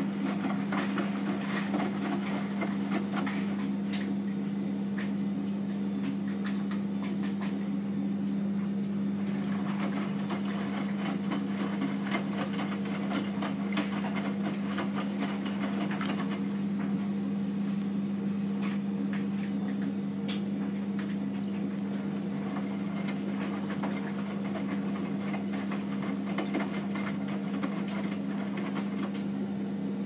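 Hotpoint NSWM 843C front-loading washing machine with an inverter motor, in the wash phase with its drum tumbling a full load of wet laundry: a steady low hum with water sloshing and scattered small knocks.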